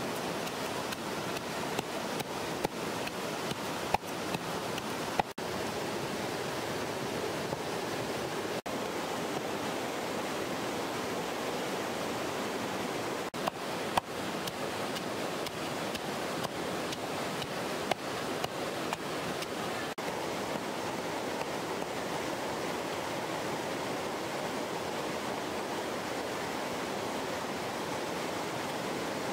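Steady rushing of river water, with a few sharp knocks scattered through it from a stone pestle pounding chilies, garlic and salt in a clay mortar.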